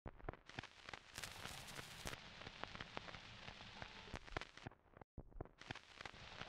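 Faint crackle and hiss of an early phonograph cylinder recording's surface noise, with irregular sharp clicks. The sound cuts out completely for a moment about five seconds in.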